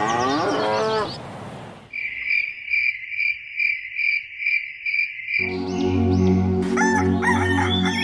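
Farm sound effects. First comes a short sweeping sound, then a run of evenly repeated high chirps like crickets at night, about two to three a second. About five and a half seconds in, a rooster crows over a low cow-like call and small birds chirping, a morning farmyard chorus.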